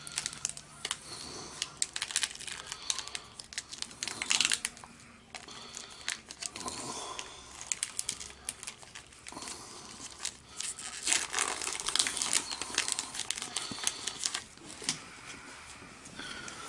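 Foil wrapper of a Pokémon trading-card booster pack crinkling and tearing as it is opened, in irregular crackly bursts with short pauses.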